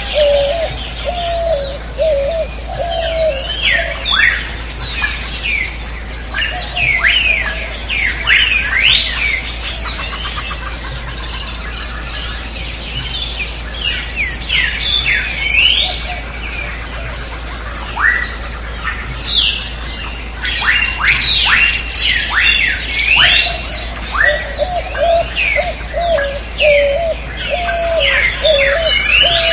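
Jungle birdsong ambience: many birds chirping and whistling in quick rising and falling notes. A lower warbling call repeats at the start and again near the end, over a steady low hum.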